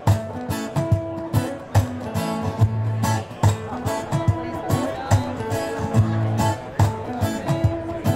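Acoustic guitar music, guitars strummed in a steady rhythm.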